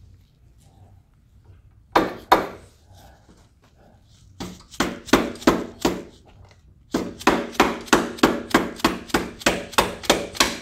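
Hammer blows on a part of an ATV A-arm during installation, tapping it into place: two strikes, a short pause, a few more, then a steady run of about three strikes a second.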